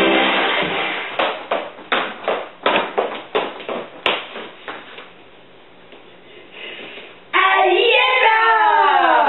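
The song's music cuts off in the first second, followed by about four seconds of uneven hand claps. After a short quiet gap, a loud voice glides down in pitch near the end.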